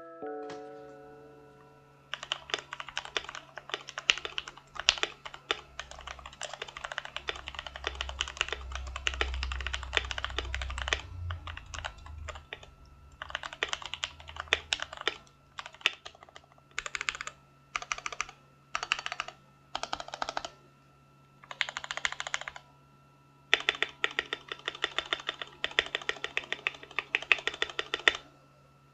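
Typing on a Redragon K606 mechanical keyboard modded with lubed Gateron Milky Yellow linear switches, double-shot PBT keycaps, foam in the case and holy-modded stabilizers. Long runs of fast keystrokes with pauses, and several short separate bursts of keys near the middle.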